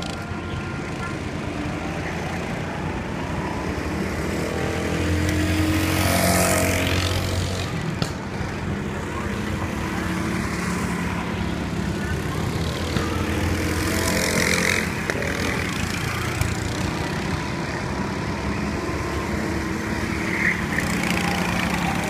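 Racing go-kart engines buzzing steadily as karts lap the circuit. The sound swells as a kart passes about six seconds in and again around fourteen seconds.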